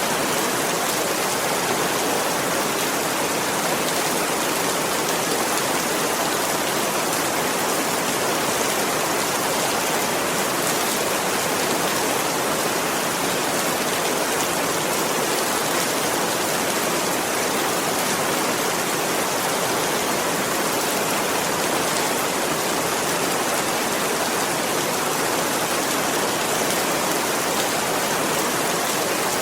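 Steady rain falling, a dense even hiss of drops with no distinct single drips or thunder.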